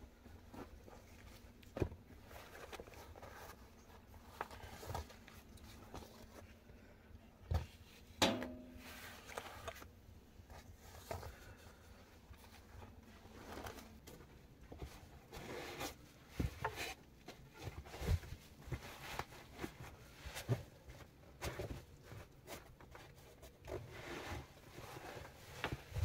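Fabric bags being handled and unpacked in a small room: rustling, a zipper-like rasp and scattered knocks and taps, the loudest a knock about eight seconds in with a brief low ring.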